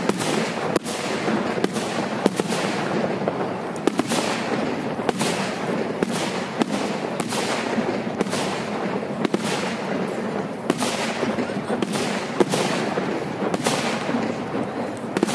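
Fireworks display: aerial shells bursting in quick succession, sharp bangs about one to two a second over a continuous crackle.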